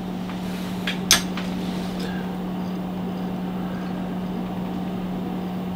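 Steady hum with a fan-like hiss from running bench test equipment, and a couple of short clicks about a second in.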